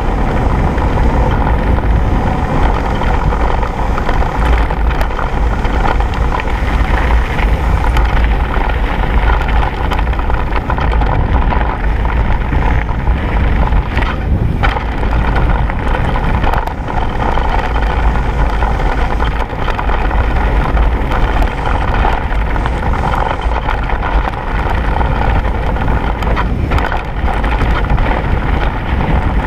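Mountain bike rolling fast down a gravel forest track: steady rush of wind on the microphone mixed with tyre noise on the loose surface.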